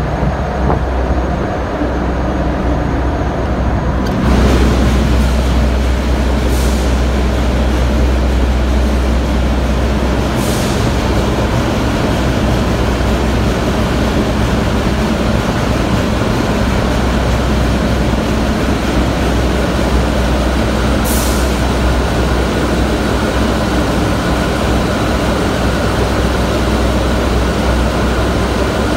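Loud, steady ship's engine-room machinery noise with a deep hum underneath. About four seconds in it grows louder and brighter, and three short hisses stand out later on.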